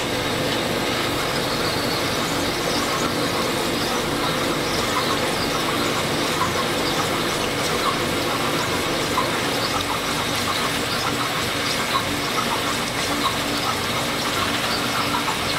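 A honing machine running steadily while an MGB rocker arm's new bushing is stroked by hand along its spinning honing mandrel to hone the bushing out to size. Under the motor's steady hum there is a light, irregular scratching of the abrasive against the bushing.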